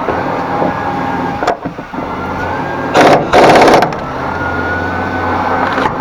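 Impact wrench hammering in two short bursts about three seconds in, driving home the nuts on the shafts of a VAZ 2113 gearbox.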